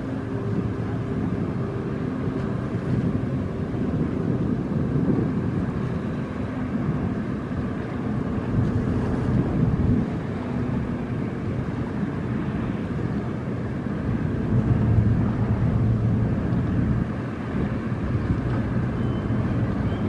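Marine diesel engines running with a steady low drone, with wind noise on the microphone.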